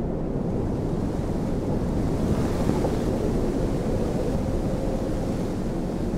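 Wind sound effect: a steady rushing gust that swells a little a couple of seconds in.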